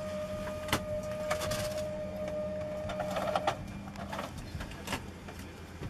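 Airliner cabin at the gate: a steady low hum, with a steady whine that stops about three and a half seconds in, and scattered clicks and knocks.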